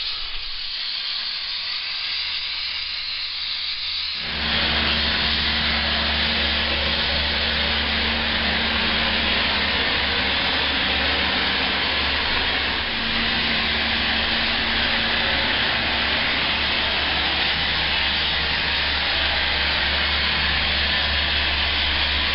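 Abrasive blasting: a loud, steady hiss of compressed air and grit, with a steady low hum underneath. It jumps up suddenly about four seconds in, over a quieter hiss before that.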